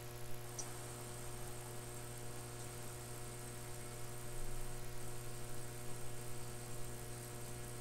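A steady low electrical hum with faint steady tones above it and light hiss, unchanging throughout.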